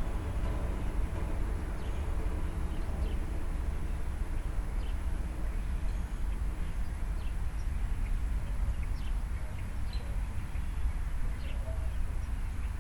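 Small birds chirping in short, scattered notes over a steady low rumble of outdoor background noise.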